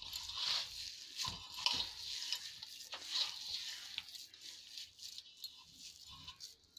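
A hand mixing and squeezing crumbly mawa and powdered sugar in a metal bowl: a dry, grainy rustle and scrape in irregular strokes, fading to faint over the last couple of seconds.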